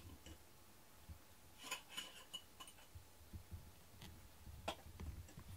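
Near-quiet room tone with a low hum and a few faint, brief clicks and taps scattered through it.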